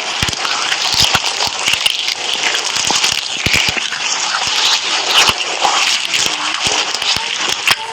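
Slime being squished and worked by hand: wet crackling with many irregular small pops and clicks.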